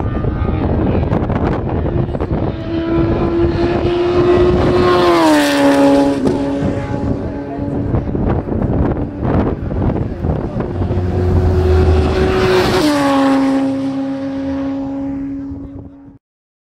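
Two race cars passing at speed, about seven seconds apart. Each engine note holds high and then drops in pitch as the car goes by.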